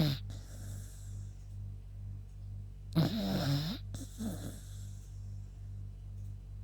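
Sleeping beagle snoring: one loud snore with a wavering, whistly pitch about three seconds in, followed by a softer one. A steady low hum runs underneath.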